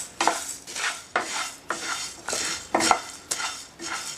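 Coriander seeds being dry-roasted in a kadai and stirred with a spatula: a rattling scrape of seeds swept across the pan, in strokes about twice a second.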